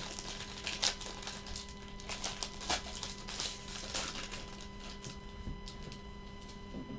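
Foil trading-card pack wrapper crinkling and tearing as it is opened by hand, a run of short crackles over the first few seconds that thins out toward the end as the cards are handled. A faint steady electrical hum lies underneath.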